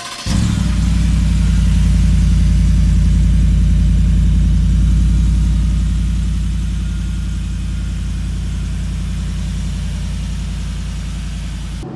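Shelby Super Snake F150's stock 5.0 V8 idling steadily through its dual exhaust tips. The idle is loud for the first few seconds and eases down a little after about six seconds.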